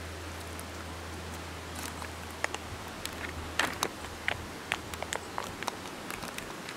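Plastic treat bag being handled and opened, crinkling in irregular sharp crackles from about two seconds in.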